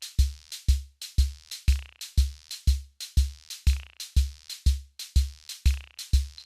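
Electronic drum-machine beat: a deep kick drum on every beat, about two a second, with short crisp hi-hat-like ticks in between.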